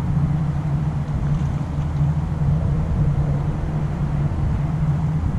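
A steady low motor hum with a noisy rumble underneath, unchanging throughout.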